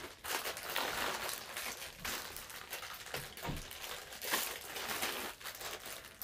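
Clear plastic bag crinkling and rustling on and off as a pair of sandals is handled inside it.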